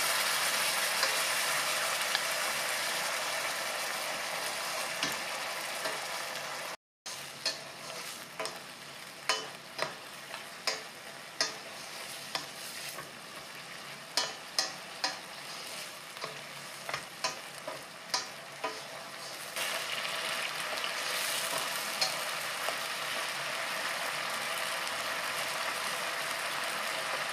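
Soy-sauce-and-water liquid sizzling and simmering down in a frying pan while dried acorn jelly strips and vegetables are stirred with a wooden spatula. A run of sharp taps and scrapes of the spatula against the pan comes through the middle, then just the steady sizzle of the sauce reducing.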